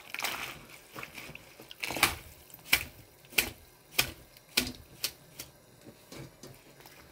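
Handfuls of soaked mugwort being shaken and flicked over a stainless steel bowl to knock the water off: a string of about seven sharp taps, a little under two a second, starting about two seconds in, after a soft wet rustle.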